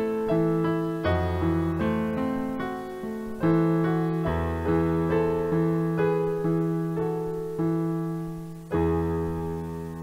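Slow solo piano music: a new chord struck about every second, each ringing and fading, the last one near the end left to ring out.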